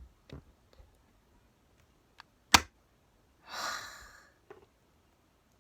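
Rubik's cube being handled and twisted: a few faint clicks and one sharp, loud click about two and a half seconds in, followed by a long sigh.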